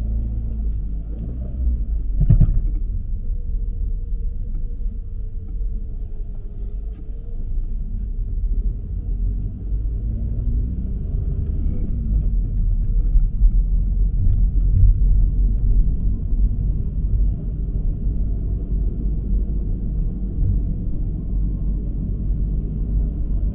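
Car on the move: a steady low rumble of road and engine noise, with a single thump about two seconds in.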